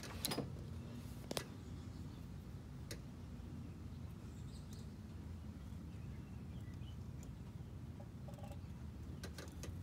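Quiet room tone: a low steady hum with a few faint small clicks in the first three seconds.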